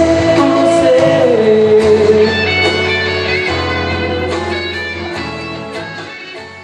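Pop song with guitar between sung lines, a held wavering note in the first two seconds, then the music fades steadily down toward the end.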